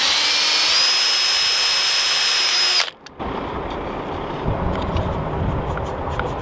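Handheld electric drill running a bit into a plastic tripod head: a high motor whine that climbs slightly, holds steady for nearly three seconds, then stops suddenly. A steady rumbling background noise follows.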